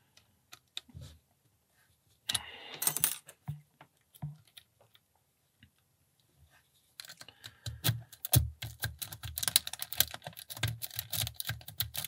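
A double-peak lock-picking rake clicking over the pins of a Brinks 30 mm brass padlock under a tension wrench. There are a few scattered clicks and a brief scraping burst a couple of seconds in. From about seven seconds in comes rapid, dense clicking as the rake is worked in and out.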